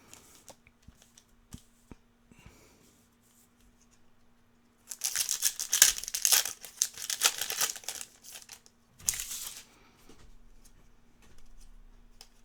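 Trading card packaging being torn open and crinkled. A few light handling clicks come first, then a loud stretch of tearing and crinkling about five seconds in and a shorter burst about a second later. A faint steady electrical hum runs underneath.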